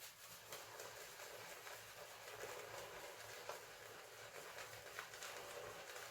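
Shaving brush swirling wet lather on a shaving soap, a faint steady swishing with many small wet clicks.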